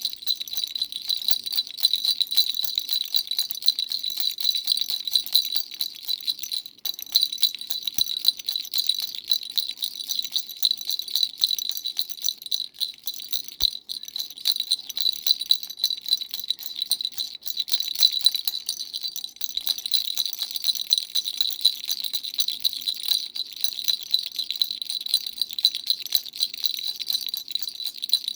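A dumbbell-shaped baby rattle shaken steadily, its rapid clicking carrying a bright jingling ring, with a brief pause about seven seconds in.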